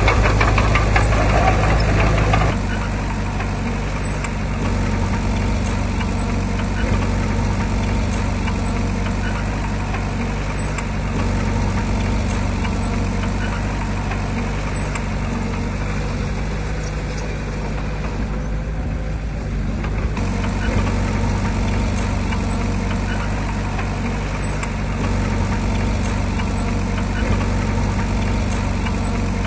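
Diesel engine of heavy earthmoving machinery running steadily. It is louder for the first couple of seconds, then settles to a lower, even run.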